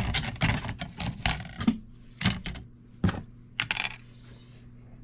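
Small low-grade circuit boards clattering as they are tossed onto a scale: a quick run of sharp clicks and knocks that thins out near the end.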